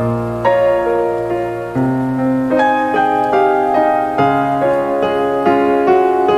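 Background piano music: a slow melody of struck notes ringing on over held chords.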